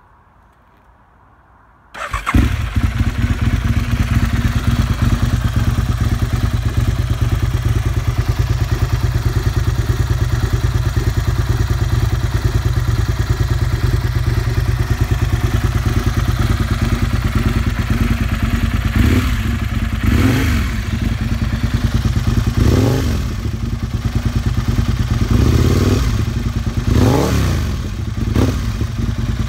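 2004 Aprilia RSV Tuono's 60° V-twin starting about two seconds in and idling through an aftermarket Carbon Can Co titanium exhaust. In the second half it is blipped several times, the revs rising and falling back to idle.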